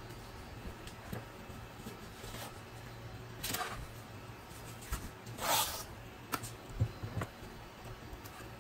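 Hands rubbing and smoothing blue painter's tape along the edge of a drawer box: two short swishes, the louder one about five and a half seconds in, then a few light knocks against the box, over a steady low hum.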